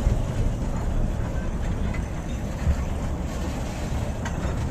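A 600 mm narrow-gauge train running along the track, heard from an open passenger carriage: a steady low rumble of the wheels on the rails, with a couple of faint clicks.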